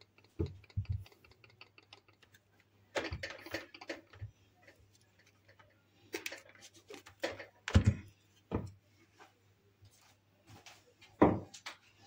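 Light clicks and scattered knocks from a switched-off stick blender being handled over a glass bowl of cake batter, its head knocked against the bowl to shake off batter, with a faint steady low hum underneath.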